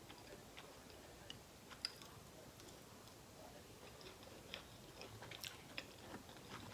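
Faint chewing of French fries, made up of soft, scattered mouth clicks that come a little more often near the end.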